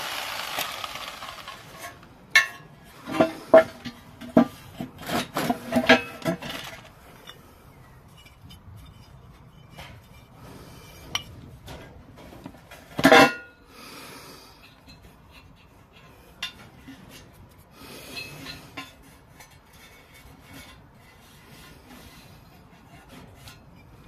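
A power saw's cutting noise dying away, then metal clanks and rattles as the cut-open cast aluminium oil sump and its offcut are handled, a run of sharp knocks early on and one louder clank about halfway through, with light scrapes and clicks after.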